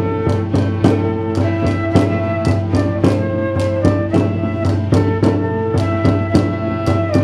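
Live early-music ensemble playing a medieval-style tune over a steady low drone, with a drum beating a steady rhythm of about three to four strokes a second.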